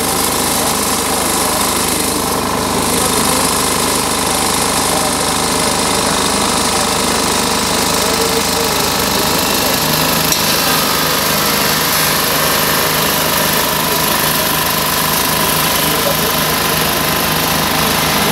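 An engine running steadily in a continuous drone, with people talking in the background.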